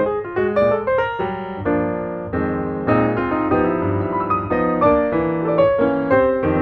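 Background piano music: a run of quick notes, then held chords for a couple of seconds in the middle, then quicker notes again.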